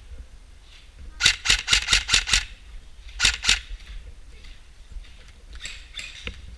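Airsoft gun firing: a quick string of about seven shots about a second in, two more shots a second later, and a few fainter shots near the end.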